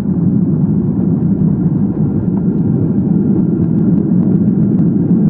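Steady low rumble inside the cabin of a Boeing 737-300 rolling out on the runway just after landing: engine noise mixed with the wheels on the runway.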